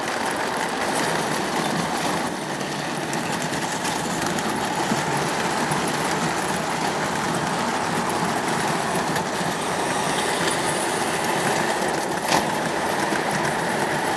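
O gauge model trains running on the layout's track: a steady rolling rumble of wheels on rail and the locomotive's motor, with one sharp click about twelve seconds in.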